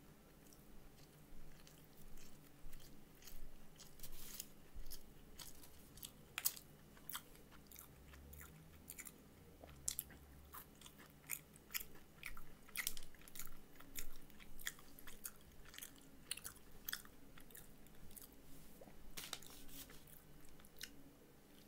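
Close-up chewing and biting of a Popeyes fried chicken sandwich: an irregular run of short, wet clicks and crunches from the mouth.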